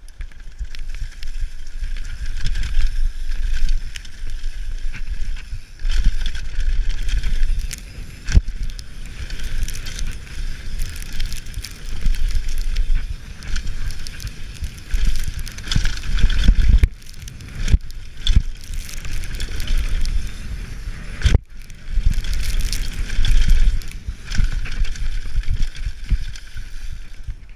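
An Intense 951 downhill mountain bike ridden fast down a rough dirt and rock trail: wind rushing over a GoPro's microphone and knobby tyres on loose dirt, with knocks and rattles over bumps and a few brief lulls in the second half. The bike itself runs quiet.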